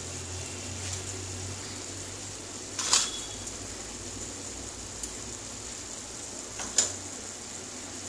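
Red spinach with a little water left in it simmering in a nonstick wok on a gas burner, a steady soft sizzle, as the last of the water cooks off. Two sharp taps break it, one about three seconds in and another near seven seconds.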